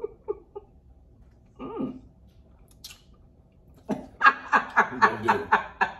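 A person laughing in a quick run of short, evenly spaced bursts starting about four seconds in, after a few soft murmurs and a brief hiss.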